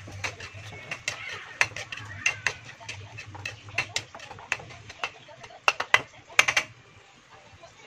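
Metal spatula scraping and clinking against a wok while stirring a thick sauce, with a sharper run of clanks about six seconds in.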